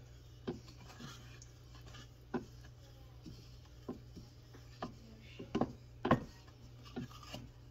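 Wooden spoon stirring sauce in a stainless steel saucepan, knocking against the pan's side in a series of irregular light taps, the loudest a little past the middle.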